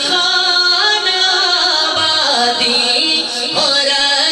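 A man singing a naat into a microphone, with long held notes that glide and are ornamented between pitches.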